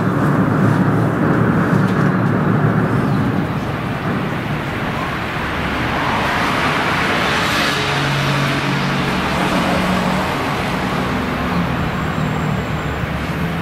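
Steady low rumble of a gut ship's (gravel carrier's) diesel engine running while the ship manoeuvres to berth. About six to eight seconds in, a rushing noise swells and fades.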